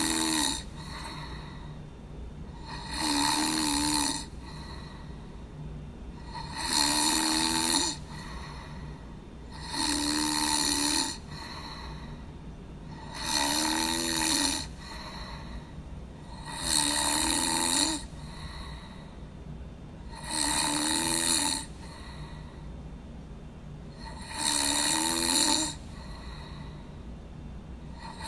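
A person snoring in a steady, even rhythm, one long snore about every three and a half seconds, over a low steady hum.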